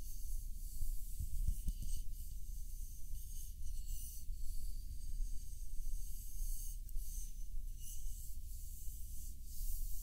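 Wooden taiko drumstick (bachi) and hands rubbing and stroking a plush toy's fur, a continuous scratchy rustle that swells and fades with each stroke.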